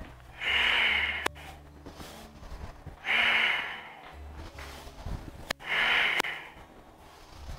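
A person breathing loudly and forcefully in time with a repeated yoga movement: three strong breaths, one about every two and a half seconds. A couple of sharp clicks fall between them.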